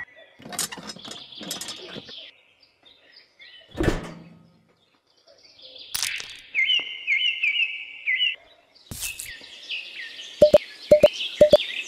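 Birds chirping: short chirps and a phrase of repeated high chirps, with a dull knock about four seconds in and a few quick clicks near the end.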